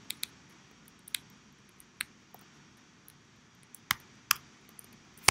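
Scattered keystrokes on a computer keyboard: about seven or eight separate clicks, spaced irregularly, as code is edited.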